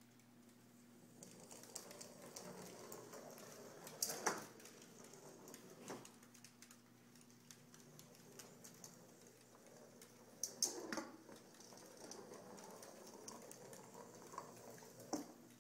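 Quiet clicking and tapping of small dogs' claws on a hardwood floor as they scramble after a rolling robot ball, with a few sharper knocks, the loudest about four seconds and eleven seconds in.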